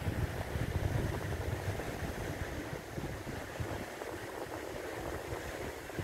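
Wind buffeting the microphone: a steady rumbling rush, heaviest in the first two seconds and then easing.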